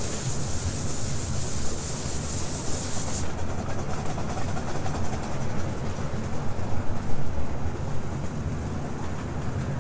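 Ride-on miniature train running along its track with a steady low rumble, and a loud high hiss for about the first three seconds.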